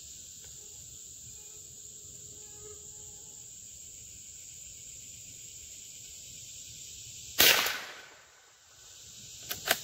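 Insects droning steadily in a high, even band. About seven seconds in, a single .22LR shot from a Howa M1100 bolt-action rifle cracks out, then a couple of sharp metallic clicks come near the end as the bolt is worked.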